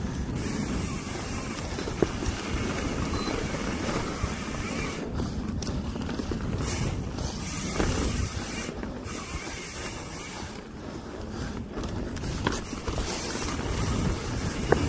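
Mountain bike riding along a dirt trail: a steady rumble of tyres over dirt and roots with wind on the microphone, and a couple of sharp knocks as the bike hits bumps.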